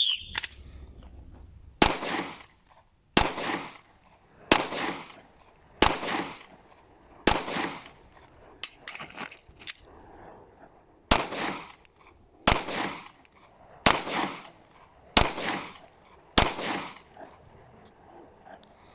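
Handgun fired ten times at a steady pace of about one shot every 1.3 seconds, each shot ringing out briefly. After the fifth shot there is a pause of about four seconds with a few faint clicks while the magazine is changed, then five more shots.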